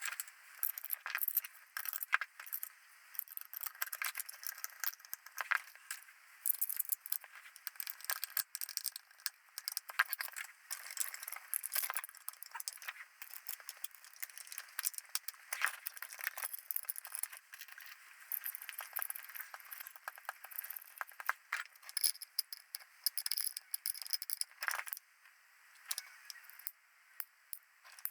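Irregular clicks, rattles and scrapes from small metal and plastic parts and tools being handled as a compact HUD video camera is reassembled.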